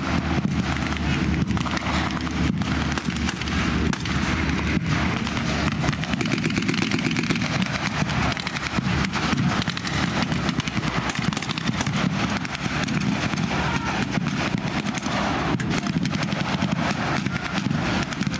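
Engines of World War II military vehicles running close by, with scattered sharp pops of blank gunfire throughout.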